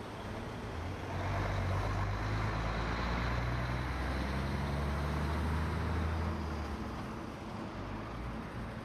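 Heavy lorry's diesel engine and tyres passing by on the road. The engine hum swells about a second in and stays loud for several seconds, then fades as it moves away.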